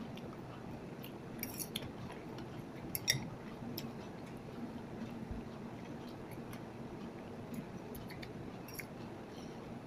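Eating sounds: chewing and a metal fork clicking against the bowl. A scatter of small clicks comes through, the sharpest about three seconds in, over a faint steady low hum.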